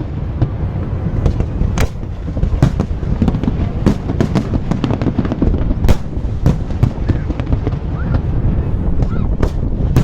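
Fireworks display: irregular sharp bangs, several a second, over a continuous low rumble of bursts.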